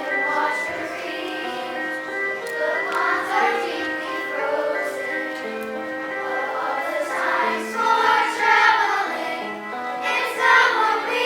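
Music from the show: a choir singing over an instrumental accompaniment that steps through a melody of held notes, growing louder near the end.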